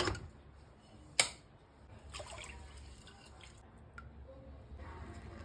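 Aluminium inner pot of an electric rice cooker knocked into place with a clank, a sharp click about a second later, then a spoon stirring the water in the pot with light dripping and sloshing.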